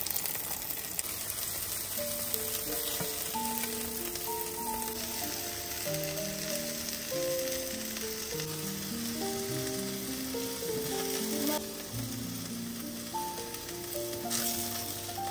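Beef liver patties sizzling as they fry in oil in a pan, a steady hiss, under background music of single melody notes. The sizzle changes level abruptly about five seconds in and again near the end.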